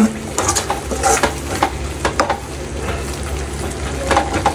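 A spoon stirring chicken in thick masala in a pot, scraping and knocking against the pot again and again over a low frying sizzle.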